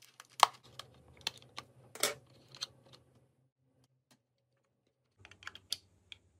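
Plastic latches of a WD EasyStore external hard drive enclosure clicking and snapping as a plastic pry tool opens the case. About eight sharp clicks come in the first three seconds, and a short cluster of smaller clicks comes near the end.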